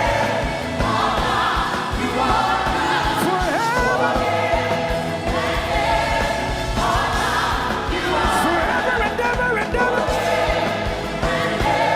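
Live gospel praise music: a band with a steady beat, with sung vocals and a choir or congregation singing along.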